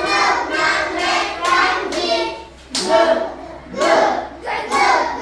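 A class of children singing a song together in rhythmic phrases, with hand claps.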